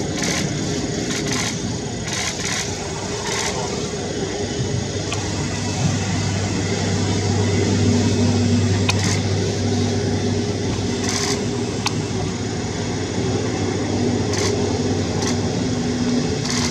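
Steady low engine rumble, with a deeper hum that swells for several seconds in the middle, and a few brief clicks.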